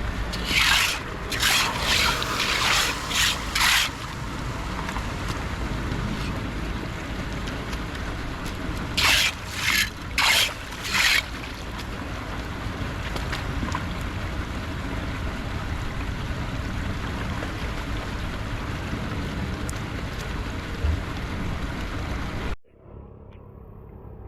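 Steady rush of floodwater through a culvert, with two clusters of short, loud bursts of noise. Near the end the rush cuts off suddenly, leaving a much quieter background.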